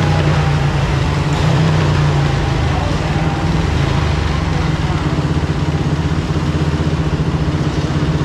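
Yamaha 450 four-stroke single-cylinder dirt bike engine idling steadily, not revving.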